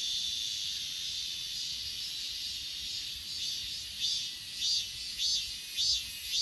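Chorus of grass insects (crickets and similar singing insects): a steady high-pitched trill, joined about halfway through by pulsed chirps repeating roughly every half second.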